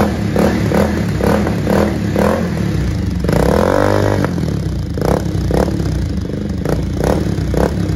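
Bajaj Pulsar 220F's single-cylinder engine revved through an Akrapovic exhaust with its dB killer fitted: a run of quick throttle blips, about two or three a second, with one longer rev about three seconds in.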